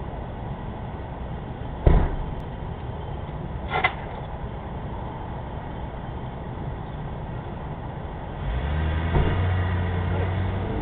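A car door slams shut, a lighter metallic clunk follows about two seconds later, and near the end a car engine starts and runs steadily as the car drives off.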